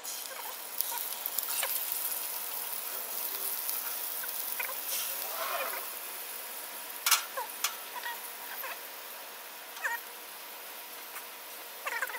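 Venison pieces sizzling as they are laid into a hot frying pan on a Coleman 425 camp stove: a steady hiss with short squeaks and pops. One sharp clack comes about seven seconds in.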